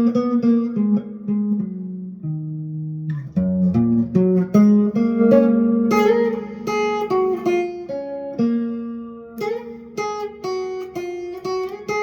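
Guitar playing an instrumental tune: single plucked notes and chords, each ringing and fading, over a bass line, with a short lull about two seconds in.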